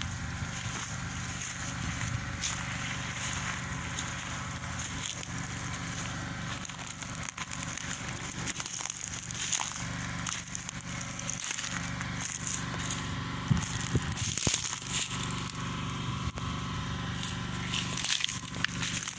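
Footsteps crunching through dry grass and stubble, with a few sharper crackles later on. Under them a generator engine runs with a steady hum.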